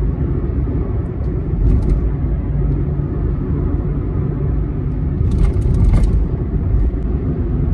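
Steady low rumble of a car's engine and tyres on the road, heard from inside the moving car, with a brief hiss a little past five seconds in.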